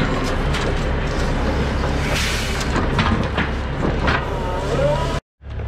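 Grapple truck engine running steadily while the grapple works over the load of logs and stump, with several knocks, a burst of hiss about two seconds in and a wavering whine near the end. The sound cuts off suddenly just before the end.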